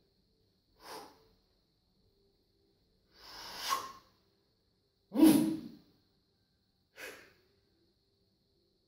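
A weightlifter's short, forceful breaths while set in the start position over the barbell, bracing for the pull: four in all, about two seconds apart, the third the loudest.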